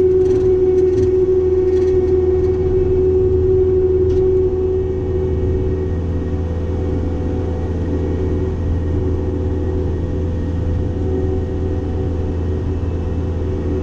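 Cat 262D skid steer's diesel engine running steadily under load, driving a Loflin open-front brush cutter, a constant drone with a strong steady whine over a low hum. A few sharp cracks sound in the first four seconds, and the level eases slightly about four and a half seconds in.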